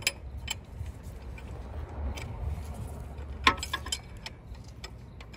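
Scattered metallic clicks and clinks of a gear puller and hand tools being handled at the nose of the crankshaft, the sharpest about three and a half seconds in, over a low steady rumble.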